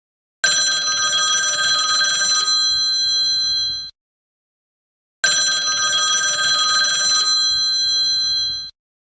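Telephone bell ringing in two long rings of about three and a half seconds each, with a silent pause of about a second and a half between them.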